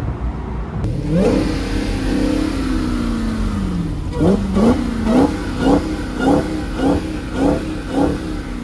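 Supercharged Hemi V8 muscle car engine being revved: one rev that sweeps up and slowly falls away, then about eight quick throttle blips, roughly two a second.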